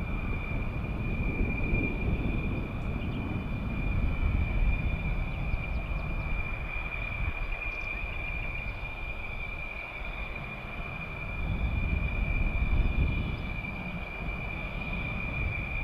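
Fighter jet engine rumble from a distance, swelling and fading unevenly, over a steady high whine.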